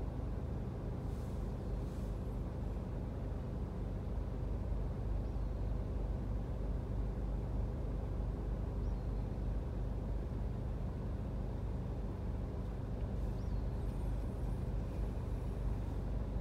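Steady low rumble of road traffic heard from inside a car stopped at an intersection, with cars and light trucks crossing in front.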